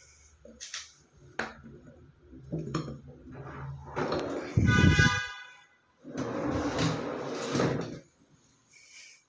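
A kitchen drawer behind a cabinet shutter is handled with a few light clicks and knocks, then pulled out for about two seconds on telescopic ball-bearing metal slides, a steady rolling rush. Just before that, around four to five seconds in, comes a short horn-like honk.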